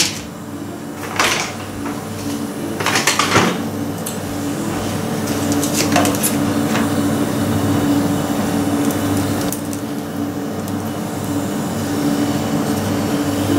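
Compressor nebulizer motor running with a steady hum, with a few brief knocks or rustles over it.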